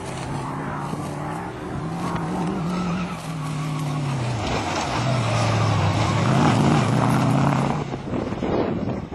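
Off-road 4x4 racing car's engine working hard, its pitch rising, then dropping, then holding low as it gets louder, before falling away near the end.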